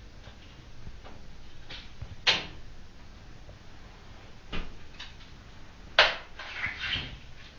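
Three sharp clacks: one about two seconds in, a softer one midway, and the loudest about six seconds in, followed by a few smaller knocks. Faint shuffling and room noise between, in a small echoing room.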